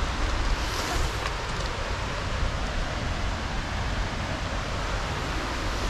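Steady wind noise on the microphone: a low flickering rumble under an even hiss.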